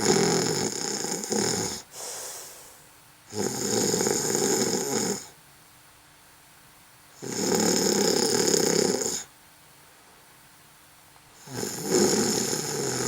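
A person snoring in a steady rhythm: four long, rasping snores of about two seconds each, about four seconds apart, with quiet gaps between.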